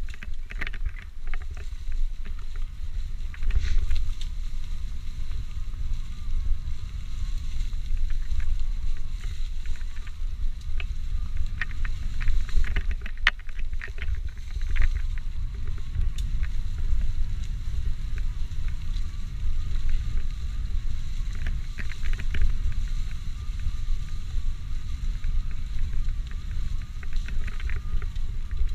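E-mountain bike ridden along a rough singletrail: a steady low rumble of tyres and wind on the microphone, with scattered clicks and rattles from the bike over the ground.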